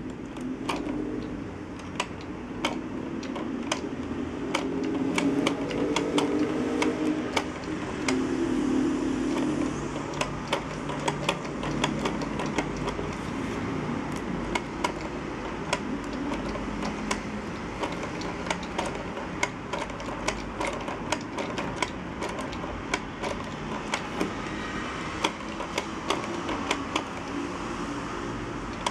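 Hand-cranked LEGO plastic mechanism working: a crank and pulley with a rubber-band drive turn a lever arm, with many sharp, irregular plastic clicks and clacks over a low whirring hum.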